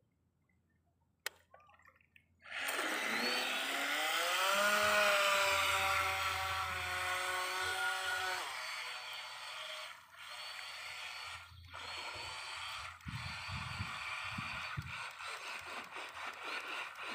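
Electric RC speedboat motor on a 14-volt battery starting up and spinning its propeller, a whine that rises in pitch and settles as the boat speeds off through the water. From about eight seconds in the whine fades into a fluctuating hiss as the boat runs away.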